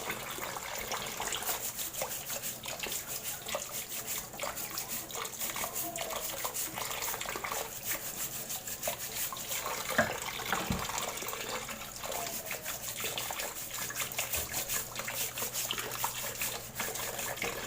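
Running water splashing steadily, with a constant crackle of small droplet ticks and one louder knock about ten seconds in.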